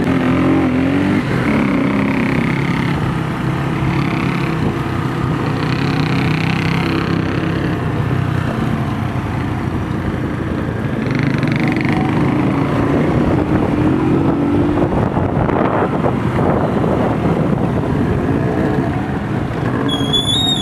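Motorcycle engines running as several bikes ride along a road, heard from one of the moving motorcycles; the engine note wavers up and down with the throttle. A short high whistle sounds near the end.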